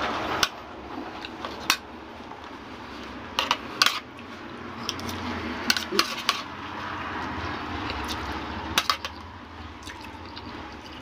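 Metal spoon and fork clinking and scraping against a plate as food is scooped and mixed, with irregular sharp clinks scattered through.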